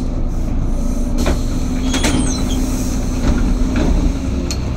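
Inside a moving bus: steady engine drone and road rumble, with a couple of sharp clicks and a short falling squeak about two seconds in.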